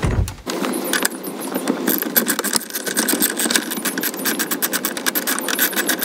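Hand ratchet with a T50 Torx bit clicking rapidly as it turns out the bolt holding a seat-belt buckle, starting about half a second in.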